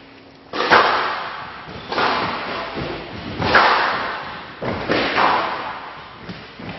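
Squash rally: the ball is struck hard with rackets and smacks off the court walls, a loud sharp crack about once a second, each ringing out briefly in the hall.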